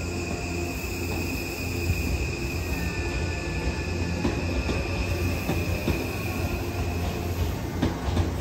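Electric passenger train rolling slowly through a station, with a low rumble and a steady high squeal of its wheels that stops about seven seconds in. From about four seconds in come scattered clicks of the wheels over the rail joints.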